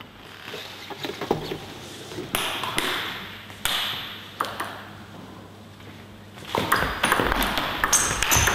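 Celluloid-type table tennis ball struck back and forth in a rally: sharp, separate clicks of the ball on the rubbered bats and the table. About two thirds of the way in, a louder rush of noise from the hall rises over the rally.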